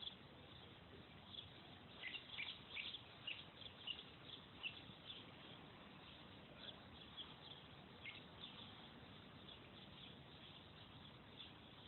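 Faint chirping of a flock of birds passing overhead: many short, high calls, thickest in the first few seconds and thinning out after.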